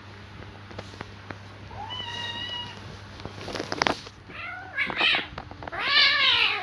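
Domestic cats fighting: a held yowl about two seconds in, a short harsh burst near four seconds, then wavering yowls building to a loud yowl near the end that rises and falls.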